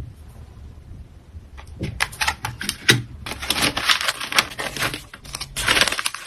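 Packing materials being handled: quick crinkling and rustling with rapid small clicks, starting about two seconds in after a quiet moment and coming in dense spells.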